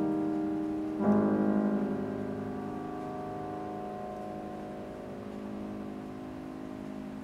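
Yamaha grand piano: a chord struck about a second in and held, ringing on and slowly fading away.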